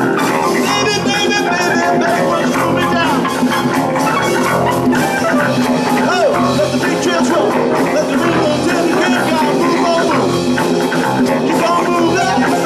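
Rock music with electric guitar and drum kit, playing loud and steady.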